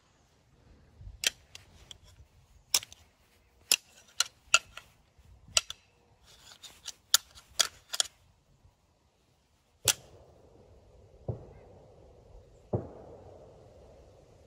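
Whitetail deer antlers being rattled together to imitate fighting bucks: a run of sharp clacks, about ten over the first ten seconds, then two duller thumps near the end.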